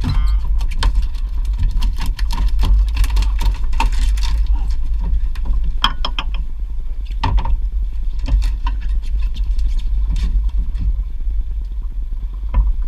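A steady low rumble with scattered knocks and clatter from a fisherman handling a fish and gear on the deck of a small open fiberglass skiff.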